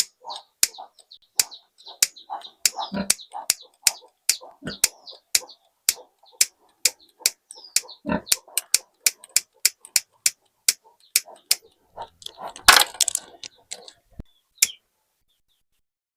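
A quick, irregular series of sharp clicks or cracks, about two to three a second, with faint short chirps between them and a louder rustling burst about three-quarters of the way through.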